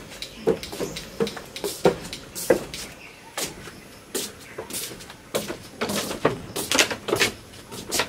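Footsteps on wooden stairs and a bamboo-slat porch floor: irregular knocks about twice a second as two people climb up and walk across.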